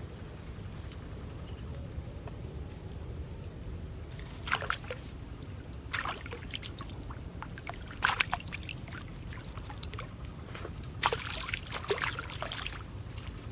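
Water splashing and sloshing in several short bursts, with a cluster of them near the end, over a steady low rumble.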